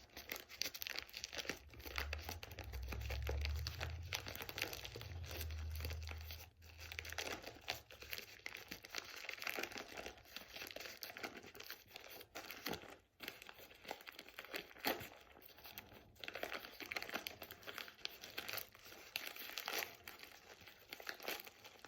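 Packaging being torn and crumpled by hand as a mailed package is worked open, a steady run of crinkling and tearing with a low rumble of handling a few seconds in.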